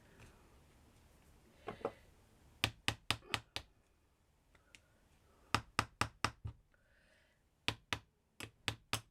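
Light, sharp tapping in quick runs of about five knocks, a little over a second each, with short pauses between: door handles being tapped into a miniature garage door.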